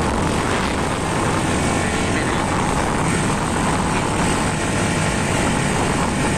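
Steady wind rush over the microphone with a motorcycle engine running, recorded from a moving motorcycle.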